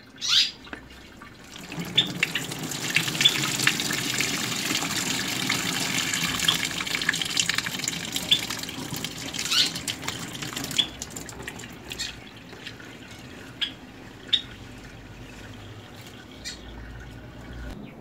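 Hot water and boiled eggshells poured from a steel pot through a plastic colander into a sink, splashing and draining, with clinks of shell and pot. The pour is heaviest for the first ten seconds or so, then drops to a quieter drain.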